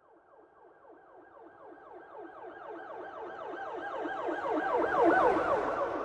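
Police car siren in a fast yelp, rapid wailing sweeps several times a second. It grows steadily louder from faint, is loudest about five seconds in, then starts to fade, as a passing vehicle would.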